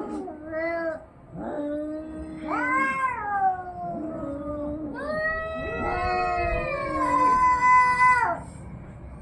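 Domestic cats caterwauling in a fight: a series of long, wavering yowls, one after another, the longest and loudest near the end.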